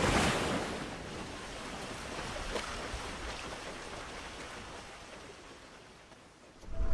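Ocean surf: a wave breaks and washes out, a hiss that swells at the start and fades away slowly over about six seconds.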